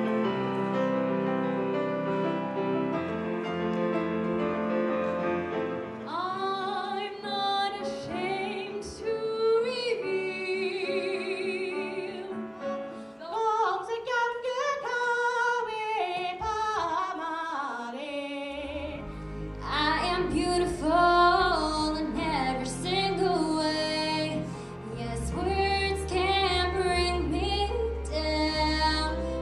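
Grand piano played solo for the first several seconds, then a female voice singing solo with accompaniment. The song and backing change abruptly twice, the last part carrying a heavy bass accompaniment under the voice.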